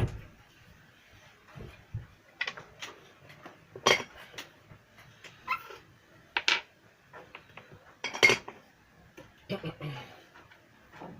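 Irregular clicks and knocks of small hard objects being handled and set down, about a dozen at uneven intervals, the loudest about four and eight seconds in.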